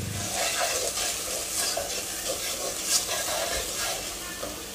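Wooden spoon stirring and scraping through chopped garlic and onion sautéing in hot oil in a pan, with a light sizzle underneath and one sharper scrape about three seconds in.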